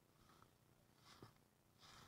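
Near silence, with three faint, brief soft sounds.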